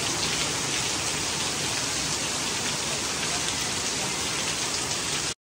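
Steady rain falling, an even hiss that stops abruptly near the end.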